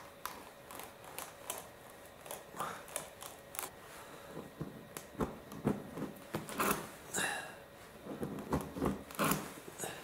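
T-handle tire-repair tool being pushed and twisted into a puncture in a truck tire's rubber tread, giving irregular scraping, rubbing and short squeaks. The strokes get busier and louder about halfway through.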